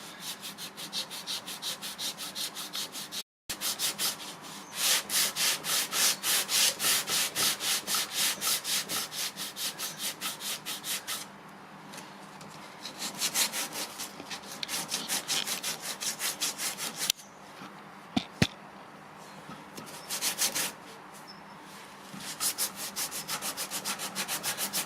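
Sandpaper being rubbed by hand over the repaired, swollen MDF of a door, in quick back-and-forth strokes about three a second. The strokes come in runs broken by short pauses, with a brief cut to silence about three seconds in and two light knocks about two-thirds of the way through.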